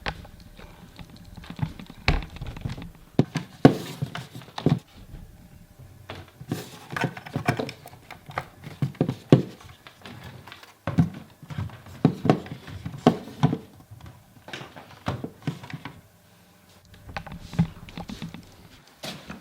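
Irregular clicks, taps and knocks of small hard objects being handled close to the microphone, coming in clusters with a short lull near the end.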